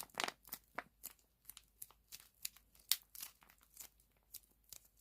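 Soft toast-shaped squishy toy being squeezed and kneaded by hand: a quiet run of short sticky crackles, a few a second, unevenly spaced.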